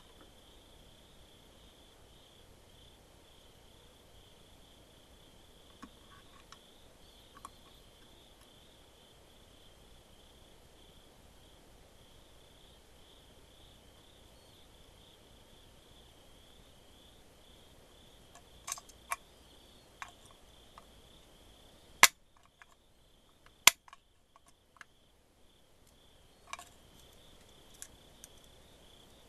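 Scattered sharp clicks and taps from handling small parts and tools, a few at first and more in the second half, with two louder ones about three-quarters through. Under them runs a steady high cricket trill.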